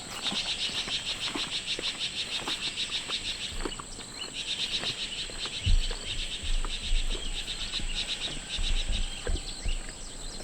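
An insect chirping in rapid, even pulses, in two long bouts with a short break between them, over a steady high-pitched whine. A few soft low thumps come in the second half.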